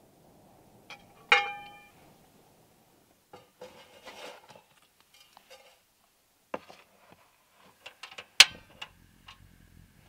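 Cookware clatter from a frying pan on a portable gas stove. A sharp metallic clank about a second in rings briefly. Then a wooden spoon scrapes through tapioca flour in the pan, with several knocks against it, the loudest near the end.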